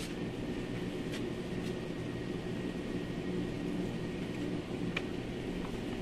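A steady low machine hum, with a few light clicks and knocks as a plastic car-door trim panel is handled and lifted off.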